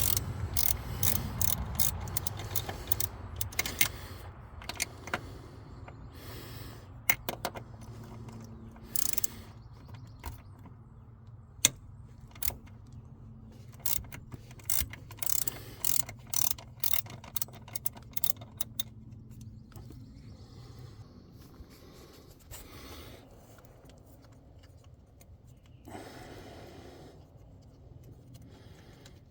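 Ratchet wrench with an extension clicking in short runs as it loosens the four 8mm bolts holding a throttle body, with scattered metallic clinks of tools and bolts.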